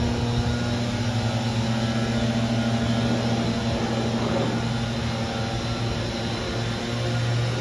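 Aircraft passing overhead: steady engine noise with a low hum under it.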